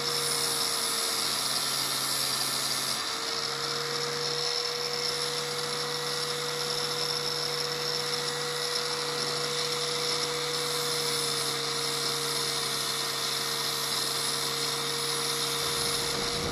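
Small high-speed rotary tool running steadily with a constant whine, grinding down the tips of screws that poke through wooden window trim.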